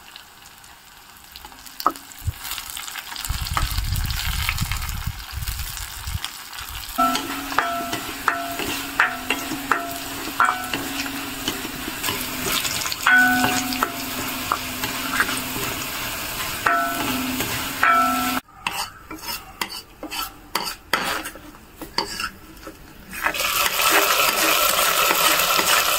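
Kerala sambar tempering of shallots, dried red chillies and curry leaves sizzling in hot oil while being stirred, the spoon clinking repeatedly against the pan. The sizzling grows much louder near the end.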